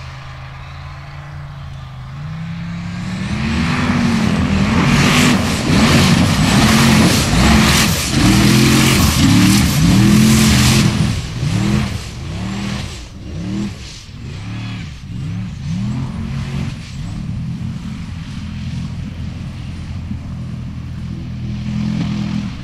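Formula offroad buggy's engine revving hard, its pitch surging up and down about once a second as the tyres spin through water and mud. A loud rush of thrown water and mud sits over it for the first half, then dies away while the engine keeps revving.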